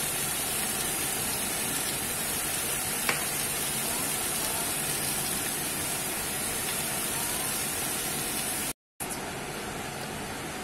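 Diced vegetables sizzling steadily in a pot as they sauté, with a single sharp click about three seconds in. The sound drops out for a moment near the end.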